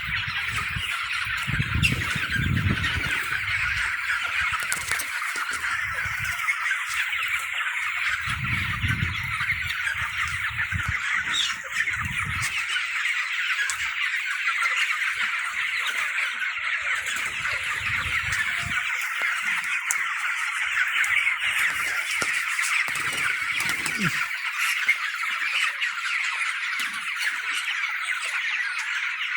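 A large flock of chickens calling and squawking all at once, a dense, unbroken din. There are low rumbles in the first few seconds and again around nine seconds in.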